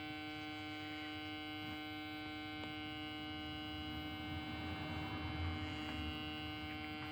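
Bentley Alpha 2 alarm panel's built-in buzzer sounding a steady, continuous exit tone while the panel is being set; the tone holds until the protected door is shut and the system arms.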